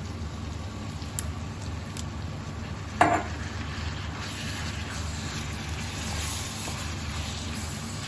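Diced lamb, onion, peppers and tomatoes sizzling on an iron plate while being stirred. A utensil clicks on the metal a couple of times, with one louder clank about three seconds in.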